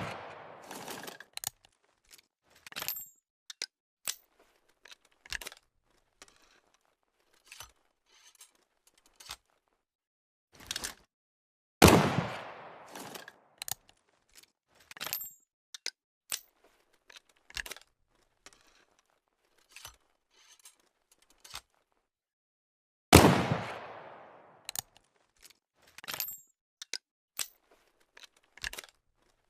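Flintlock pistol sound effect: a run of small metallic clicks and scrapes of the lock being worked, then a sharp shot with a long fading echo, repeated. Two shots land about 12 seconds and 23 seconds in, and a third shot's echo is still dying away at the start.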